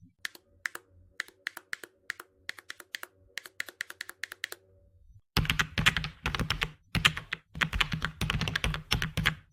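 Custom mechanical keyboard being typed on: slow, separate keystrokes for about five seconds, then fast, dense typing that is louder and deeper.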